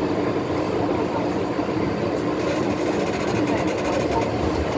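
MTR M-Train electric multiple unit running, heard from inside the carriage: a steady rumble of wheels and running gear with a steady hum underneath.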